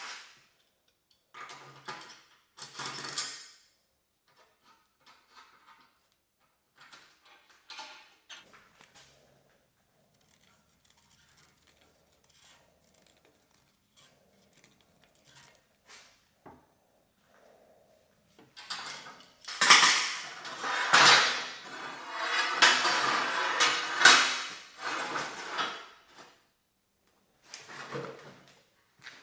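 Metal parts and tools clinking, knocking and scraping on a workbench. There are scattered light knocks at first, then a longer, louder run of clattering and scraping about two-thirds of the way through.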